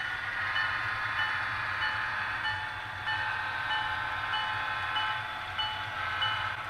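HO-scale model freight train running along the layout track. It makes a steady hum with a light, regular high tick about every half second.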